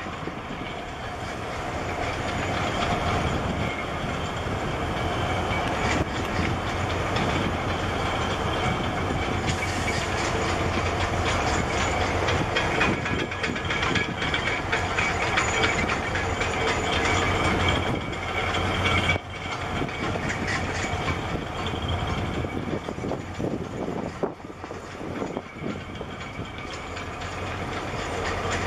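Steady, loud diesel engine rumble with a dense rattle from a large container ship and the harbour tug working beside its hull.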